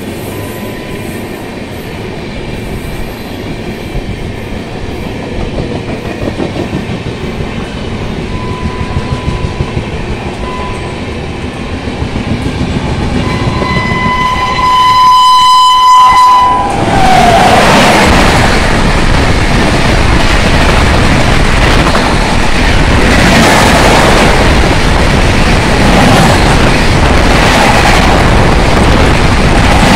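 Two express trains crossing on a double line. First the wheels of a passing train clatter steadily. Around the middle, the approaching locomotive's horn sounds two short blasts and then a long one. The horn gives way to the second train passing close, with loud, steady wheel rumble and clatter.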